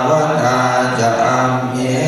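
Thai Buddhist monks chanting Pali verses in a low, even recitation: the daily temple chanting service (tham wat suat mon).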